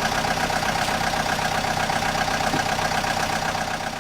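Excavator's diesel engine running steadily, an even machine drone with no change in pitch.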